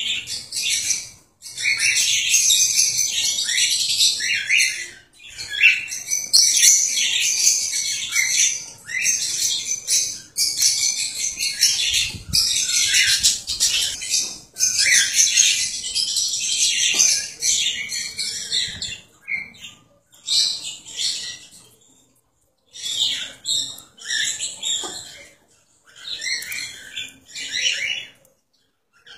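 Cockatiels chirping and chattering, a near-continuous run of high, scratchy calls that breaks into shorter bursts separated by pauses in the last third.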